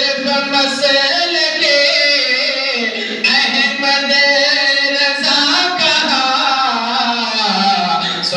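A man singing a naat, an Urdu devotional song, into a microphone, in long held notes that slide and waver in pitch without a break.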